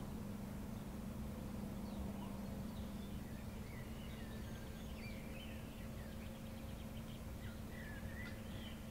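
Small birds chirping and singing in short, scattered phrases over a steady low hum and rumble of outdoor background noise.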